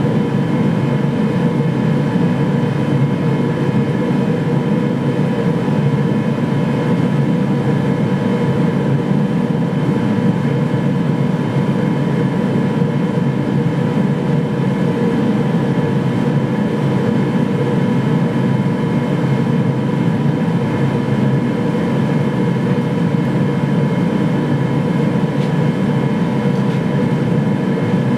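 Gas-fired forge burner and blower running, heating a blade for heat treatment: a constant loud roar with a steady whine over it, unchanged throughout.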